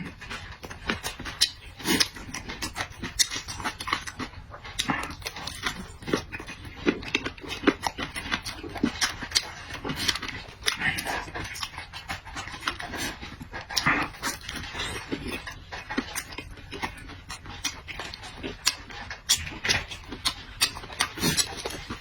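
A person eating noisily with the mouth open: wet chewing, lip-smacking and slurping in quick, irregular clicks, with heavy breathing between bites.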